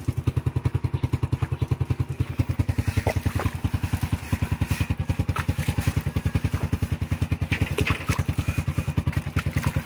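Motorcycle engine idling with an even beat, about eight pulses a second.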